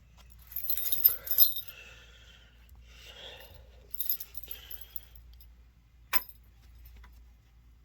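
A ring of keys jangling in several short bursts, with one sharp click about six seconds in, as the key is used to reset a fire alarm pull station.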